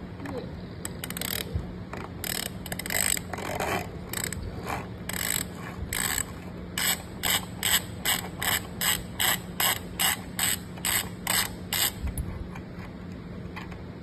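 Socket ratchet wrench on a bicycle cassette lockring tool, unscrewing the rear cassette's lockring. Its pawl gives rasping click-strokes, uneven at first, then a quick steady back-and-forth of about three or four strokes a second for some five seconds before stopping.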